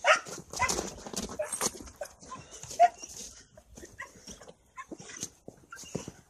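A dog whining and yipping in short, repeated calls, with scattered sharp knocks and steps in between.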